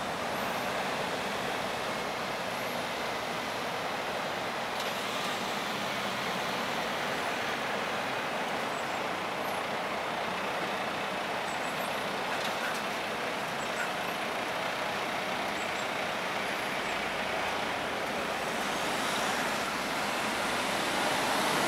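Steady road traffic noise, an even hiss of passing vehicles that grows a little louder near the end, with faint high chirps now and then.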